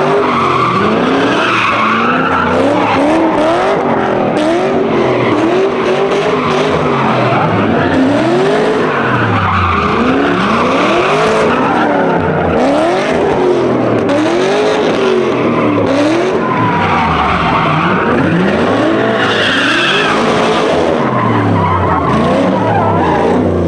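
A car engine revving hard over and over, its pitch climbing and dropping about once a second, over a continuous tyre squeal: a burnout.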